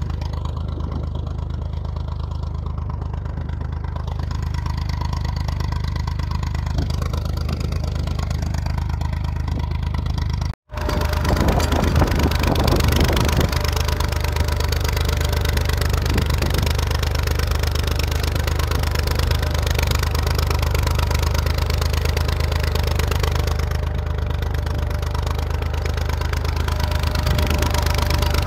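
IMT 539 tractor's three-cylinder diesel engine running steadily while pulling a plough through soil. About ten and a half seconds in, the sound cuts out for an instant and comes back louder.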